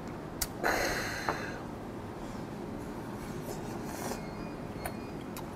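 Mukbang eating sounds: a small click, then a short noisy rush from the mouth lasting about a second, then quiet chewing with a few faint clicks of chopsticks.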